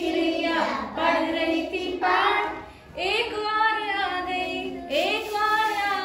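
A group of children singing a Hindi counting rhyme in unison, phrase by phrase, through the lines about seven little birds reading their lesson and an eighth one arriving.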